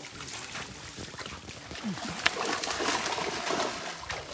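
Water splashing and sloshing as people wade through shallow pond water working a fishing net, with birds calling.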